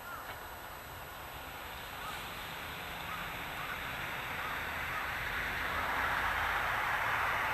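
Electric-bell level-crossing signal ringing at about two strikes a second, fading as the running noise of a two-car Meitetsu Mo510-type electric railcar set rises into a rush that grows steadily louder through the second half.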